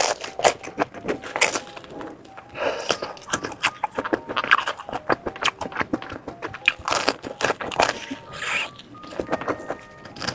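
Close-miked eating sounds: sausages being bitten and chewed, with dense wet clicks and crackles of the mouth and food and some breathy swells between bites.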